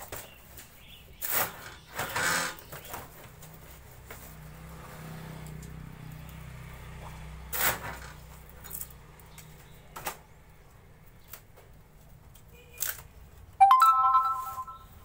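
Dry wood veneer sheets crackling and knocking as they are shuffled and cut on a manual lever-arm veneer cutter. Near the end comes a loud metallic clank with a ringing tone as the cutter's steel arm swings up on its spring.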